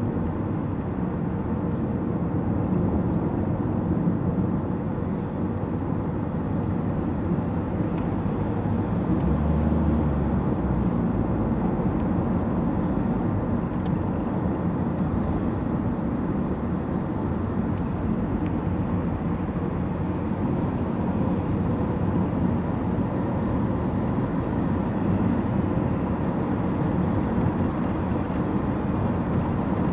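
Steady road and engine noise inside a moving car's cabin: a low, even rumble of tyres on the road and engine hum while driving at speed, with a brief low swell about ten seconds in.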